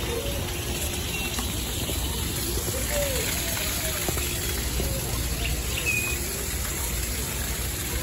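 Outdoor zoo ambience: a steady low background noise with a few faint, brief bird chirps and calls over it.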